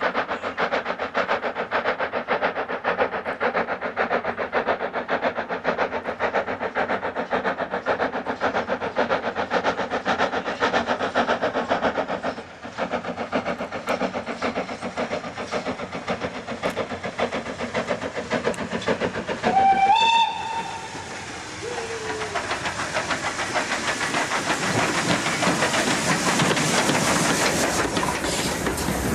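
LMS Fowler 3F 'Jinty' 0-6-0 tank steam locomotive working a train, its beats fast and even. About 20 s in a short whistle sounds, followed by a lower sliding tone. A hiss then builds toward the end as the train draws close.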